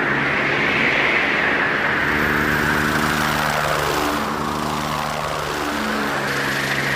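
Rushing aircraft noise that swells and sweeps slowly up and down in pitch, joined about two seconds in by low, sustained musical notes that change in steps.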